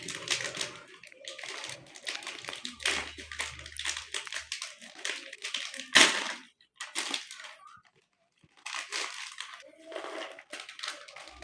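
Plastic snack packets crinkling and rustling as they are torn open and handled, in irregular crackly bursts with one sharp, louder crackle about six seconds in.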